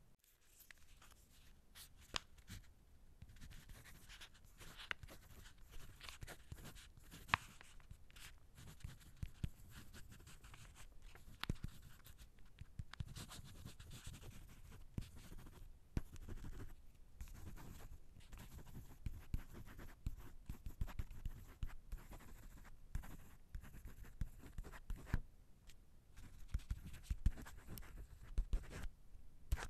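Pen writing by hand on paper: continuous scratching strokes with many small taps and ticks, stopping briefly now and then between words.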